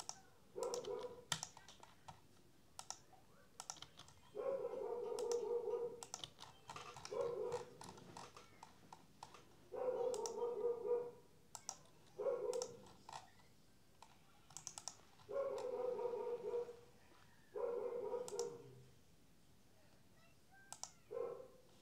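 Computer mouse clicks while drafting in pattern-making software. Louder than the clicks, a steady pitched tone comes and goes about seven times, each stretch lasting a second or two.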